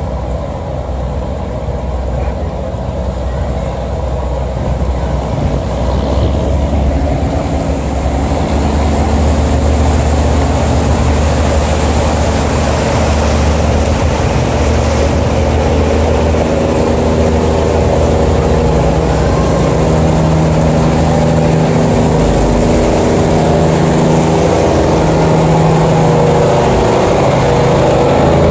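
Diesel engine of a steel sand barge running steadily as the barge pushes through a sluice gate, getting gradually louder as it comes close, over the rushing churn of water along the hull.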